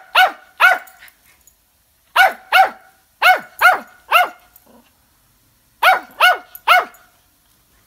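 A small terrier barks sharply and repeatedly at a fidget spinner spinning in front of it. There are about eleven high yaps, each dropping in pitch, coming in quick bursts of two or three with short pauses between the bursts.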